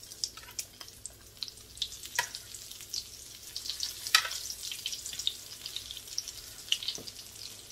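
Breaded broccoli florets frying in hot oil in a pan: a steady crackling sizzle made of many small pops, with a couple of louder sharp clicks about two and four seconds in.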